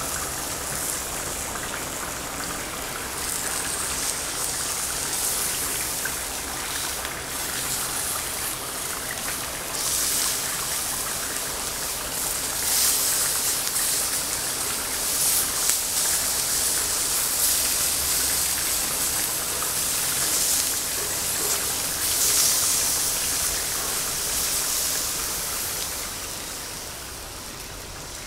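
Shrimp and zucchini slices sizzling on a hot ridged grill pan over a gas burner, a steady hiss that swells louder several times as pieces are laid on and turned with tongs.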